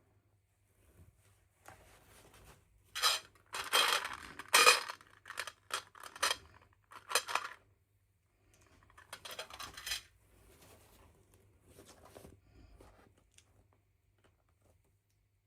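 Small hard plastic toy pieces and packaging being handled, clinking and rattling in irregular bursts. The loudest bursts come three to five seconds in, with a last cluster about nine to ten seconds in.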